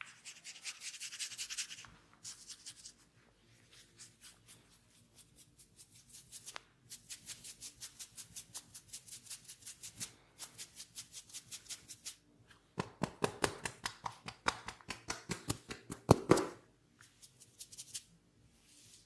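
Hands tapping rhythmically on a head in a head massage, in quick runs of about four taps a second, louder and denser for a few seconds near the end.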